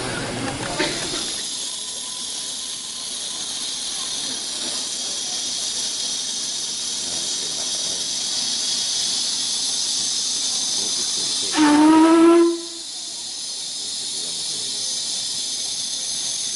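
Steam locomotive letting off a steady hiss of steam. About two-thirds of the way through comes one short whistle blast, under a second long, slightly rising in pitch and the loudest sound.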